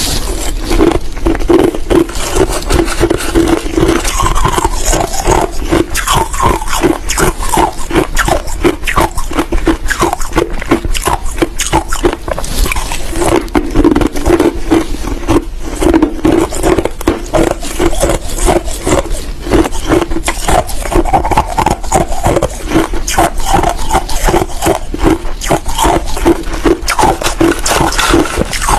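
Big pieces of crushed ice being bitten and chewed close to the microphone: a dense, unbroken run of rapid crisp crunches.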